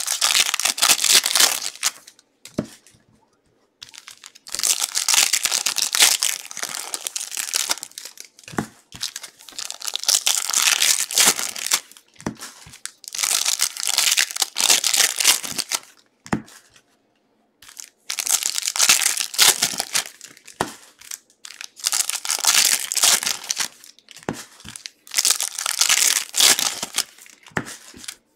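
Foil trading-card pack wrappers crinkling and tearing as packs are ripped open by hand, in bouts of a few seconds with short pauses between.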